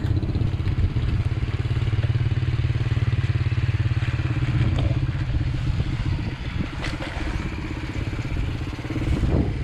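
Small underbone motorcycle engine running at low speed close by, a steady even putter.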